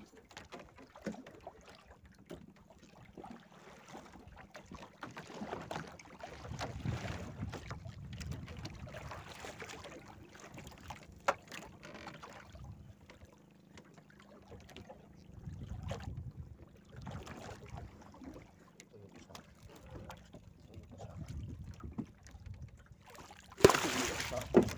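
Sea water sloshing and lapping around a small boat, with wind on the microphone, swelling and fading. Near the end a hooked yellowfin tuna thrashes at the surface beside the boat, making a loud splash that lasts about a second.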